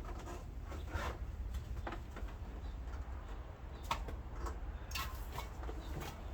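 A dove cooing, with scattered clicks and rustles of things being handled over a steady low rumble.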